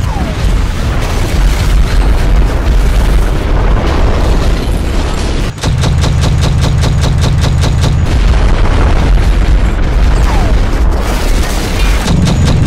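Sound effects of explosions and cannon fire: deep booms and gunfire over a fast, even pulsing, with a brief drop about five and a half seconds in.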